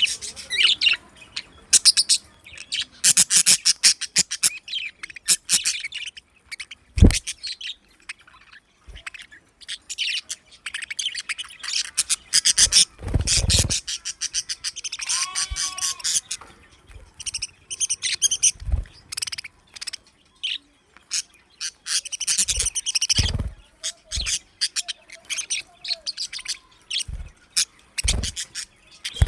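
Budgerigars chirping and chattering, with fast, high, overlapping chirps throughout. A few dull low thumps occur among them.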